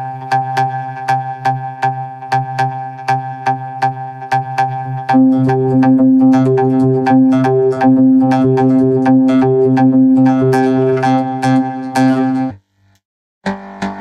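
Synthesizer music: a held chord under a steady pulse of short notes, about four a second. It gets louder about five seconds in and stops abruptly shortly before the end, with a moment of silence before a new sound starts.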